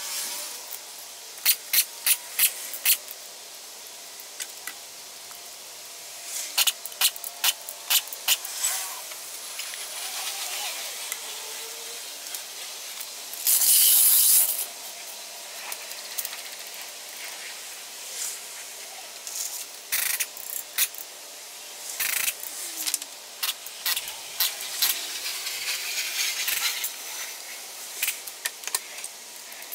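Wheel-removal work on a car: sharp metallic clicks and clinks from tools and lug nuts come in scattered runs, with one loud hiss lasting about a second roughly halfway through.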